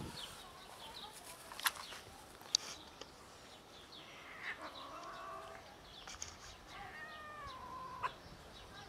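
Stray cats meowing: two drawn-out meows, the second falling in pitch, with a couple of sharp clicks before them.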